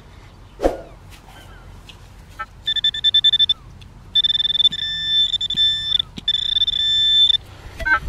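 Handheld metal-detecting pinpointer sounding in the dug hole: a few quick beeps, then a high electronic tone in three stretches, partly pulsing and partly held steady, as it passes over a metal target. A single thump about half a second in.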